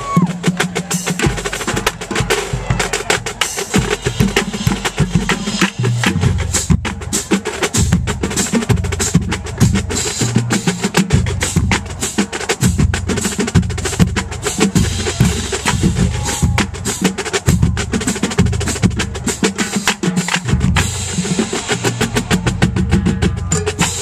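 Marching band drumline playing a fast cadence: rapid snare and tenor drum strokes with crash cymbals, and tuned bass drums whose low notes come to the fore about six seconds in.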